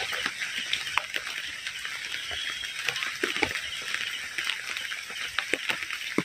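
Steady rain hissing, with scattered drips and taps of water striking surfaces.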